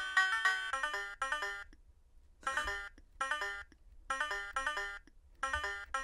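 Electronic banjo tune from the LeapFrog Fridge Farm toy's sound chip, a quick run of plucked notes that breaks off after about a second and a half. It then stutters as a few short repeated snatches with gaps between them: a glitch from bridging the circuit's contacts while circuit-bending.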